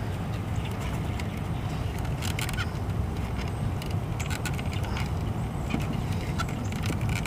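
Hands working a rubber vacuum hose onto the top fitting of an EGR valve among cramped engine-bay hoses and wiring: faint scattered clicks and rubbing over a steady low rumble.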